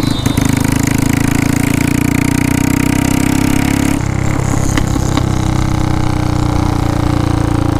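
Royal Enfield Bullet 350's single-cylinder engine running under way through a Kawasaki ZX-10R exhaust, a loud steady thump. About four seconds in the sound eases, and a few sharp pops follow.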